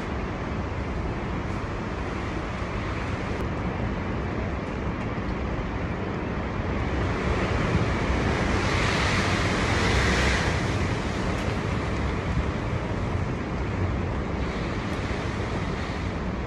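Storm-force wind gusting, a steady rushing with heavy low rumble on the microphone; one stronger gust swells from about halfway through and eases a few seconds later.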